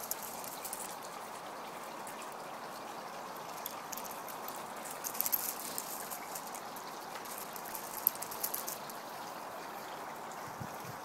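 Steady background hiss with scattered crisp crackling and clicking, strongest between about five and nine seconds in: dogs' paws scuffing and skittering over slate chippings as they play.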